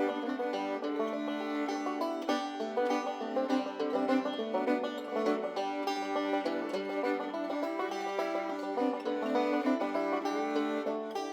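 Background bluegrass-style music led by a fast-picked banjo.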